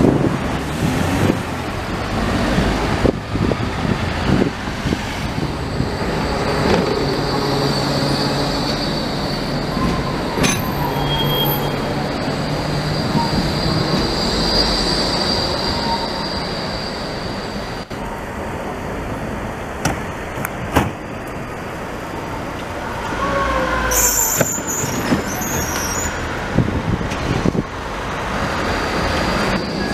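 Low-floor electric street trams running past on city tracks amid road traffic, with a couple of brief, high-pitched wheel squeals.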